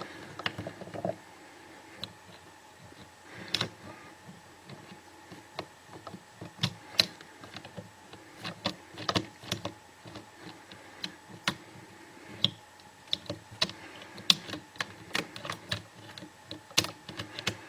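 Irregular small, sharp clicks and ticks of a disc detainer pick turning the discs inside a clear plastic disc detainer training lock, coming in scattered clusters.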